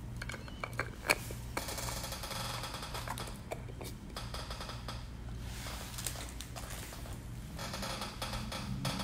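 Light handling sounds: a few small sharp clicks in the first second or so as a plastic glitter jar and its lid are handled, then stretches of soft rustling, over a steady low hum.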